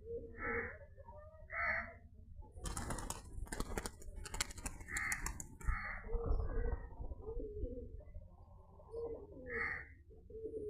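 Pigeons cooing in short repeated calls, with a burst of scratchy, rattling noise about three seconds in that lasts a couple of seconds.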